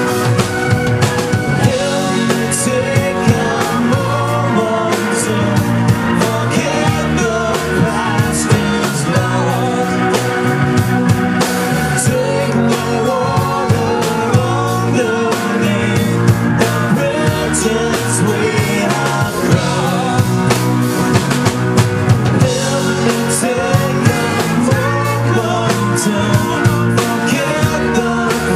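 Live rock band playing: strummed acoustic guitar, electric guitars and a drum kit with cymbal hits, under a lead singer with backing vocals.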